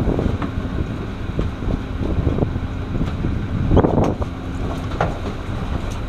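Fishing boat's engine running steadily under heavy wind buffeting on the microphone, with a few sharp knocks, the loudest nearly four seconds in.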